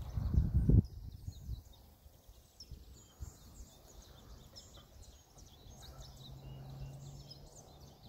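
Many small birds chirping and twittering in a tree, short high calls overlapping throughout. A low rumble on the microphone fills the first second.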